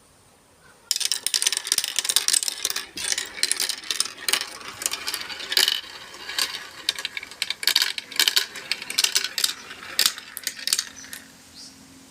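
Marbles rolling and clattering down a marble run: a dense, irregular rattle of clicks that starts suddenly about a second in and thins out near the end.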